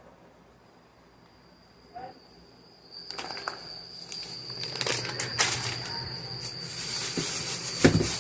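Rustling and handling noises with scattered clicks, building up after a quiet start, and a single thump near the end.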